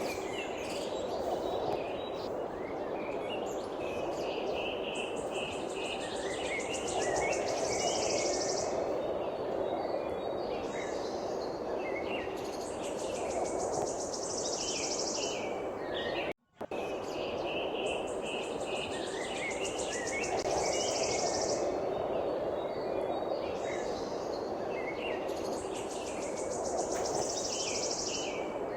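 Wild songbirds chirping and calling, with high, fast pulsing trills coming and going over a steady low rushing background. About halfway through the sound drops out for an instant and the same sequence starts over.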